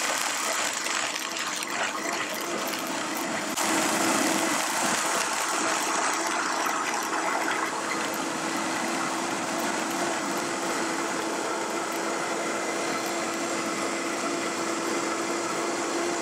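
High-powered countertop blender running steadily, pureeing a citrus smoothie with lemon skin and seeds in it; the motor gets louder about three and a half seconds in and then holds an even pitch.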